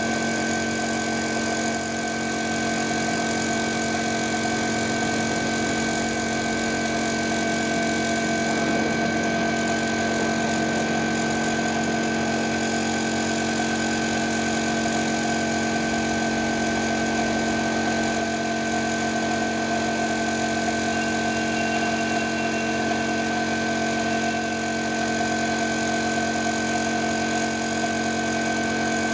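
Air compressor running steadily with a constant multi-tone hum, feeding a paint spray gun whose air hisses as it sprays.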